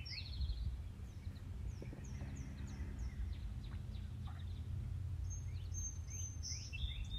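Wild birds chirping: a quick run of short, falling high notes near the middle, then thin high calls near the end, over a steady low background rumble.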